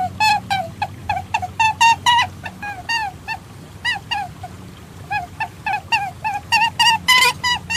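Recorded animal calls played as a perentie lure: a quick, uneven series of short pitched calls, each bending down in pitch, about three a second, with a fast flurry near the end.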